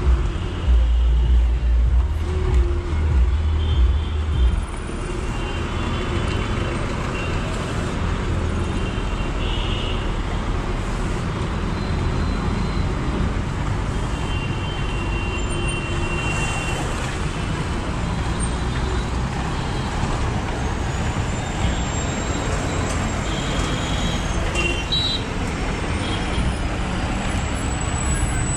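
Road traffic: a bus engine running close by for the first four or five seconds, then a steady wash of passing cars, buses and trucks, with a few short high-pitched beeps.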